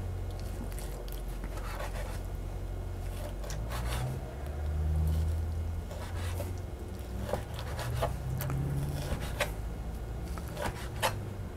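Chef's knife cutting raw chicken breast into cubes on a wooden cutting board: irregular light knocks of the blade meeting the board, with a steady low hum underneath.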